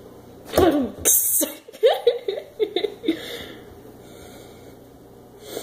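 A woman's wordless vocal sounds: a vocal noise falling in pitch about half a second in, a short sharp hiss, then a couple of seconds of mumbling. After that only quiet room tone.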